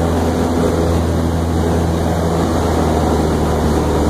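Light single-engine airplane's piston engine and propeller running steadily in flight, a constant low drone heard from inside the cabin.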